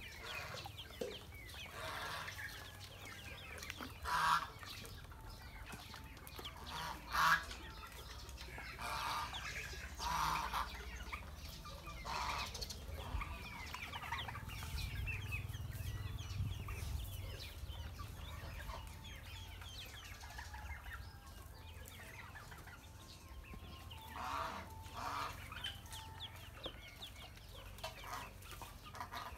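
A group of ducklings peeping, many short high calls overlapping all the way through, rising into louder flurries several times.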